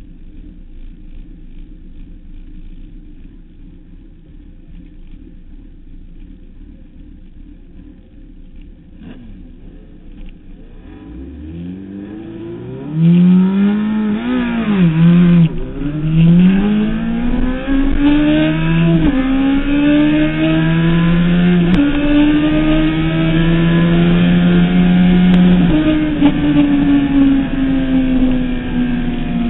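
Suzuki Hayabusa 1300's inline-four engine ticking over low, then, from about twelve seconds in, pulled hard through the gears. Its pitch climbs in each gear and drops at each upshift, four or five times, over rising wind noise, then holds high at speed before easing off near the end.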